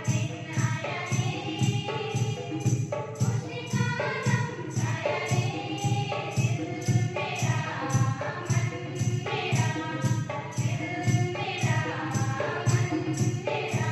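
Background music: a sung song with choir-like voices over a steady percussion beat.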